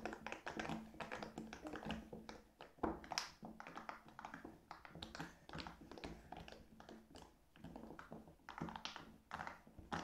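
Faint, quick, irregular pops and clicks of fingers pressing the bubbles of rainbow silicone pop-it fidget toys, two people popping at once.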